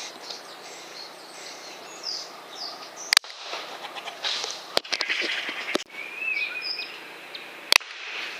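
Birds chirping and calling over steady outdoor background noise, with two sharp clicks, one about three seconds in and one near the end.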